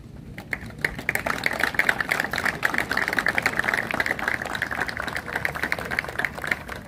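Audience applauding: many hands clapping in a dense, irregular patter that starts about half a second in and thins out near the end.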